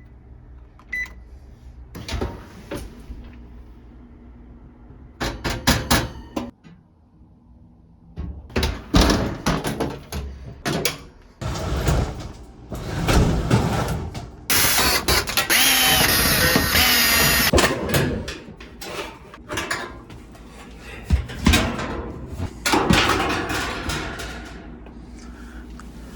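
Irregular knocks, clicks and clatter of hard objects being handled, with a harsh scraping or rattling stretch of about three seconds midway.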